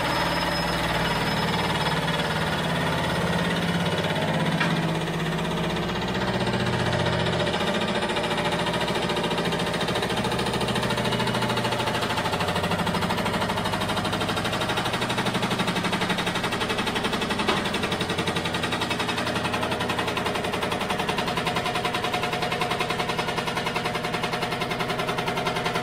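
A motor-driven shop machine running steadily with a fast, even rattle.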